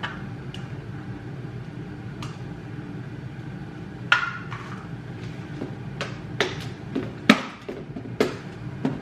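Kitchen utensil clinking and tapping against dishware, a few light taps at first, then about a dozen sharper knocks from about four seconds in, some with a short ring, over a steady low hum.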